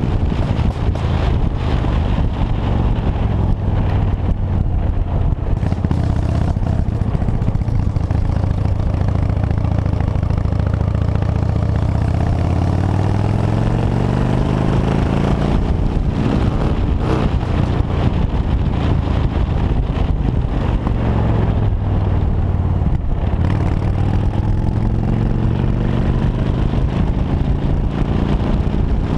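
Motorcycle engine running while riding, heard from the handlebars, its pitch sliding down and back up several times as the rider eases off and opens the throttle.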